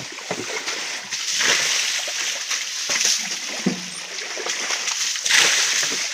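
Shallow stream water splashing and sloshing over rocks, with scattered small knocks and a louder splash about five seconds in.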